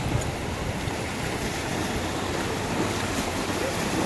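Small waves washing in and out over a sandy shallow shore, a steady wash of water noise with wind buffeting the microphone.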